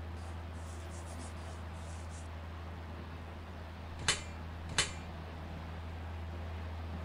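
Two sharp metallic clicks about two-thirds of a second apart, a little past halfway: galvanized sheet-metal pipe fittings being set down on a board. A faint scratching of a pencil marking the board comes in the first two seconds, over a steady low hum.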